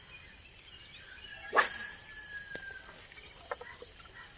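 Insects chirping in a high-pitched, even rhythm, about one half-second call each second. A single sharp knock sounds about one and a half seconds in.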